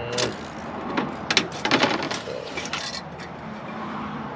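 Hand cutters clipping through the bars of a white plastic egg-crate grid, a quick run of sharp plastic snaps and clicks with the grid rattling, over roughly the first three seconds.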